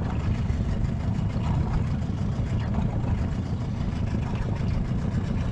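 Strong wind buffeting the microphone: a steady, choppy low rumble with a faint hiss above it.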